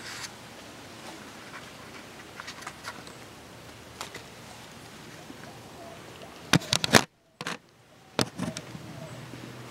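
Camera handling noise as the camera is moved about and set down on the ground: scattered small clicks, then a burst of loud knocks about six and a half seconds in. The sound drops out to near silence for about a second, and a few more knocks follow.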